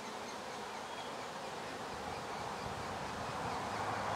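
Saskatraz honey bees buzzing steadily in a dense hum at an opened hive, growing a little louder toward the end.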